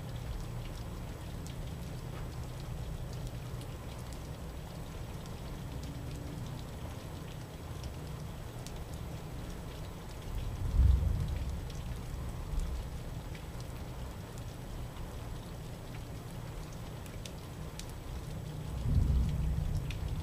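Steady rain falling, with scattered drips and a low rumble underneath. Two short, louder low rumbles of thunder come about halfway through and near the end.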